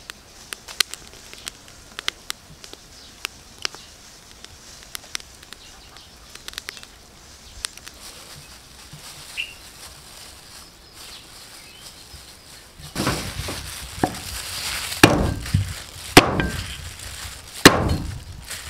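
Cleaver chopping garlic on a wooden chopping board: a run of heavy chops over the last six seconds. Before the chopping there are only faint scattered clicks and crackles.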